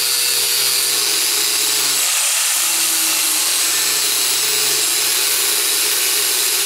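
Power grinder running against a dull steel high-lift mower blade, sharpening its edge with a steady hissing grind. The motor's tone dips briefly under load about two seconds in.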